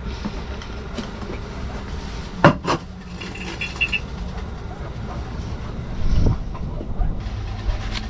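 Two sharp knocks on the wooden cabin floor about two and a half seconds in, and a duller thud near the end, over a steady low hum. These go with a plastic beaker being brought down to trap a large insect.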